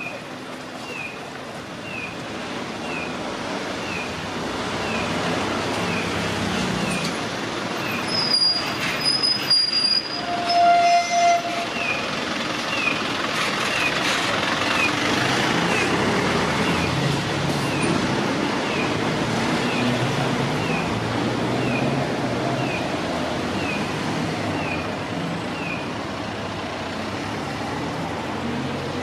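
Kyosan type-21 acoustic pedestrian signal speaker playing its imitation-bird 'piyo-piyo' walk tone: short falling chirps about once a second that stop about 26 seconds in, marking the green walk phase. Passing traffic runs underneath, with a brief squeal and horn-like tone about ten seconds in.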